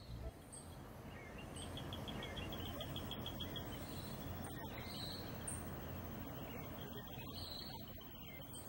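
Evening outdoor ambience: a fast, even, high-pitched trill that starts about a second in, pauses past the middle and returns, with short high chirps scattered over it and a low steady rumble underneath.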